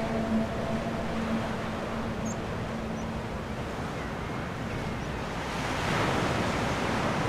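Ocean surf breaking and washing over rocks, a steady rush of sea noise that swells louder about six seconds in.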